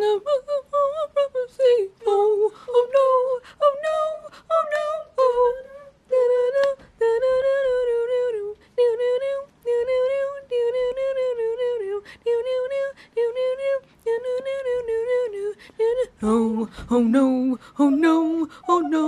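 A woman singing a tune on her own, unaccompanied, in short rhythmic phrases at a high pitch; near the end her voice drops lower.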